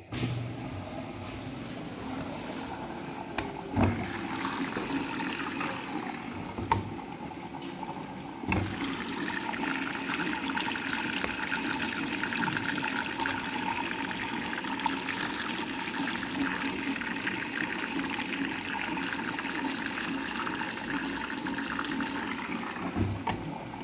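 Water rushing steadily through a Samsung washing machine, with a few dull knocks in the first eight or nine seconds and another near the end.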